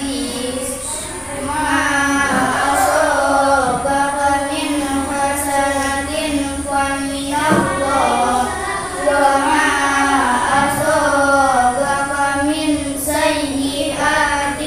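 Children reciting the Quran aloud in a melodic chant, their voices held on long notes and gliding up and down in pitch, with more than one voice heard at once.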